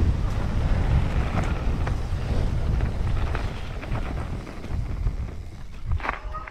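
Wind buffeting the microphone of a camera on a moving mountain bike, over the rumble of tyres rolling on a dirt trail. It dies down over the last couple of seconds as the bike slows on a short climb, with a brief knock near the end.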